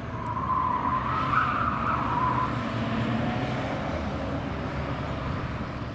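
Škoda 100-series saloon taken hard through a slalom of cones and tyres: its tyres squeal for about two seconds near the start, the pitch rising a little, over the engine running under load.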